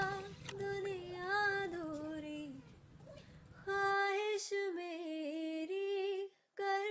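A high female voice singing a melody with no clear words, in held, gliding phrases; the sound cuts out briefly near the end.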